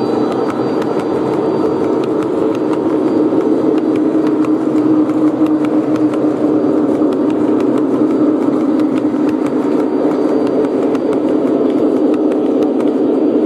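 O gauge model coal train of hopper cars rolling past on three-rail track: a steady rumble and hum with rapid fine clicks throughout.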